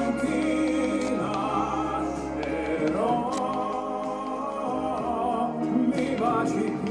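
Music: an operatic-style singing voice holding long, wavering notes over orchestral accompaniment.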